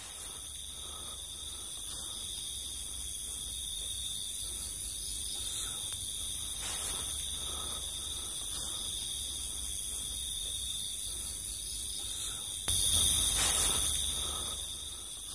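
Night chorus of crickets and other insects: several steady high-pitched trills sounding together over a low rumble. About thirteen seconds in, a louder low noise comes in and fades over a couple of seconds.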